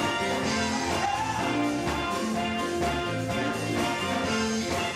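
Live gospel band music with drums keeping a steady beat, an instrumental passage.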